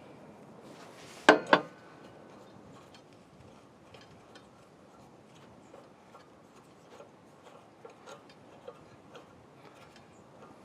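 Two sharp clicks about a quarter second apart, then faint, scattered light ticks.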